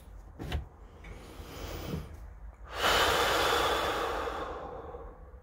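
A man breathes in and lets out one long, heavy sigh about three seconds in, loud and close, fading away over a second or two. A short knock comes near the start.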